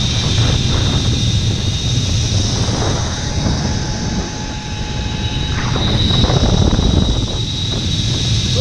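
Zipline trolley pulleys running along the steel cable with a steady high whine, under heavy wind rumble on the microphone.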